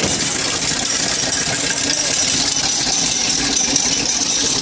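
The engine of a small toy-train locomotive idling steadily at close range, a constant low hum.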